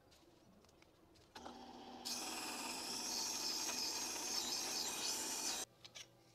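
MagnaCut steel knife blade being ground on a Tormek sharpener's CBN wheel: a low hum starts about a second and a half in, then a loud steady grinding hiss, which cuts off suddenly near the end.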